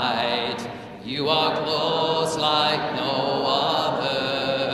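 Congregation singing a hymn together, voices holding long notes with a short break between phrases about a second in.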